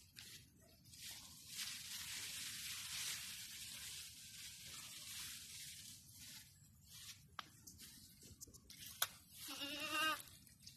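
A goat bleats once, a single wavering call near the end, just after a sharp click. Before it, a long high rustling hiss, as of brushing through tall grass.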